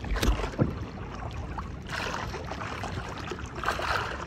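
Water sloshing and lapping against the hull of a small wooden outrigger boat on choppy sea, swelling twice, with a few knocks from the boat itself in the first second.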